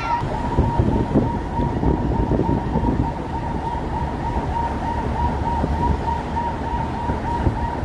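Motorcade vehicles driving along a town road, with a heavy rumble of engine, tyre and wind noise and an escort siren holding a steady high tone with a fast warble.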